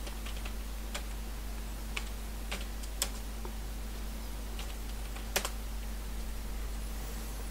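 Computer keyboard keys being typed slowly and unevenly, a dozen or so separate clicks. The loudest key press comes a little over five seconds in. A steady low electrical hum runs underneath.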